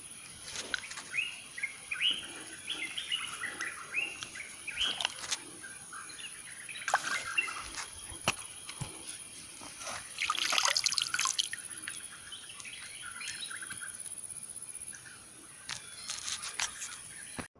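Wild songbirds chirping in quick, repeated short calls over the sound of stream water, with a steady high-pitched insect buzz, like crickets, underneath. A short hissing rush comes about ten seconds in.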